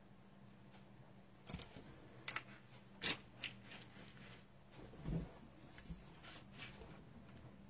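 A few light clicks and taps, with one soft thump about five seconds in, from hands handling things on a craft desk, over a steady low hum.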